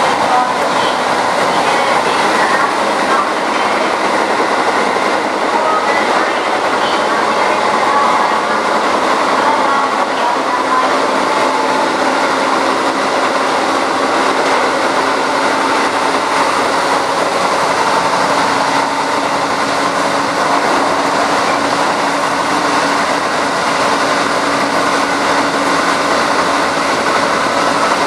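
Hokuso 7260 series resistance-controlled electric train with TD parallel cardan drive, heard inside the passenger car while running on the line: steady rolling noise of wheels, motors and gearing. A low steady tone comes in about twelve seconds in.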